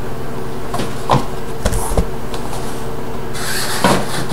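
Cardboard packaging being handled and set aside on a desk: a few light knocks in the first two seconds, then a short rustle and knock as a wrapped item is laid down near the end, over a steady low hum.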